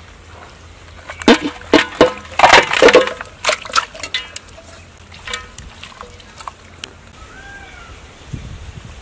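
Aluminium pot and its metal lid clanking: a quick run of sharp metallic knocks with a short ringing tone over a couple of seconds, then a few softer knocks.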